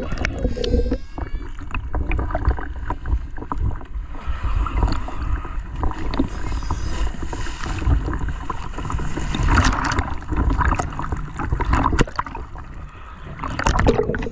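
Choppy sea water splashing and sloshing around a camera at the surface as it dips in and out of the water.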